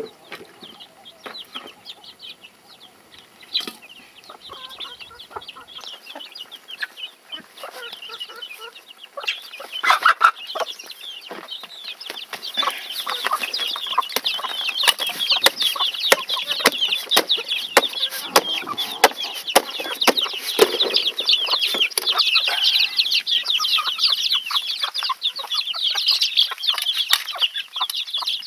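A flock of chickens and young chicks calling at once: many high-pitched cheeps mixed with hens clucking. The calls start sparse and faint and swell into a loud, continuous chatter from about a third of the way in.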